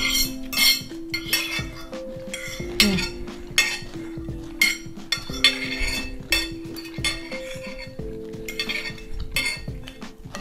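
Knife and fork clinking and scraping against a dinner plate, many short clinks scattered through, over soft background music with a slow melody.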